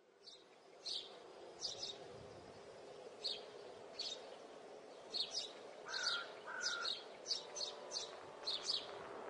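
Small birds chirping: many short, high chirps repeated irregularly, with two clear whistled notes about six seconds in, over a faint steady outdoor background.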